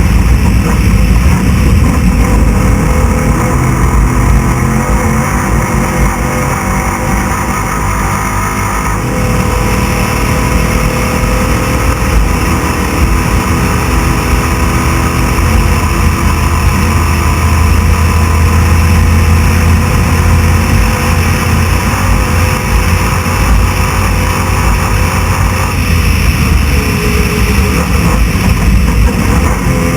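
Class 6100 desert race truck engine running hard at speed, heard loud from on board over a heavy wash of rattle and rough-ground noise. The engine note rises and falls with the throttle and holds one steady low pitch for a few seconds around the middle.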